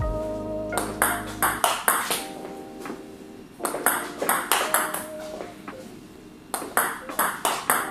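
Table tennis ball clicking off the table and the racket in short stop and push strokes, the racket faced with TIBHAR Hybrid K3FX rubber: three quick runs of light, sharp clicks, each a few exchanges long.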